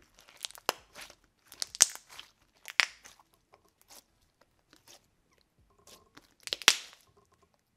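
Thick, cream-cheese-textured slime with small beads being stretched and pressed by hand, giving clusters of sharp crackling pops. The loudest come about two seconds in and again near the end.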